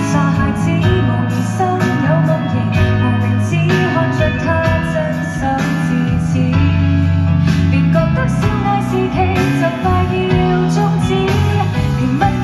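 Live Cantopop band music over a concert PA, with a full band playing over a steady beat and bass.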